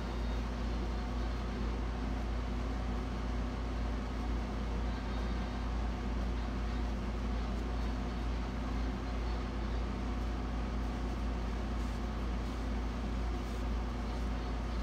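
Air conditioner running with a steady low hum and even hiss.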